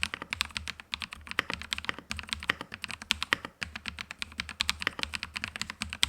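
Mechanical keyboard with hand-lubricated Haimu Mint Lemon switches being typed on quickly and continuously, a dense, irregular run of keystroke clacks.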